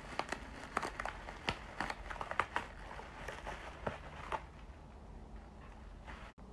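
Bubble wrap being handled around a wrapped glass pipe: a rapid, irregular run of small crinkles and sharp little clicks for about four seconds, then it dies down.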